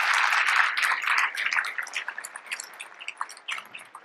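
Audience applauding, dense at first, then thinning to scattered claps that die away near the end.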